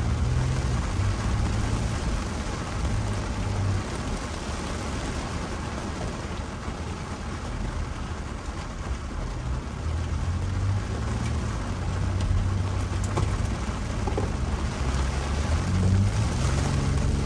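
Tropical-storm rain on a moving car, a steady hiss of rain, with a low rumble of engine and road that swells and fades.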